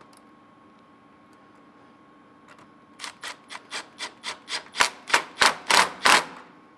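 Ratchet with a 7 mm socket tightening a hose clamp on a vacuum hose: about a dozen short rasping strokes, roughly three a second, that grow louder toward the end.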